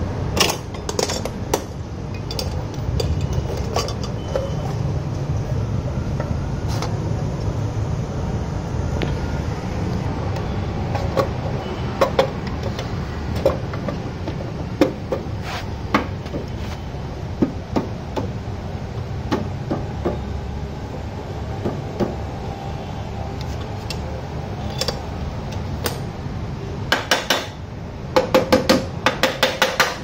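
Hand tools clinking and knocking on the metal of a scooter's CVT transmission cover and bolts, in scattered sharp clicks over a steady low background rumble, with a quick flurry of metal clinks near the end.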